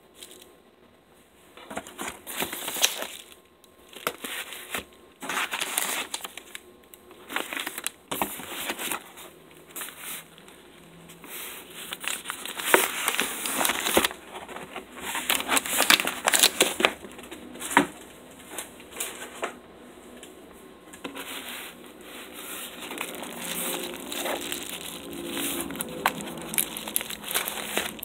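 Padded kraft bubble mailers and brown paper packaging being handled and crinkled, in irregular rustling bursts with sharp crackles.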